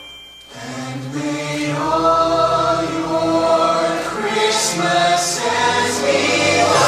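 Recorded dance music played over a theatre sound system, briefly dipping at the start, then building again about half a second in with sustained choir-like voices.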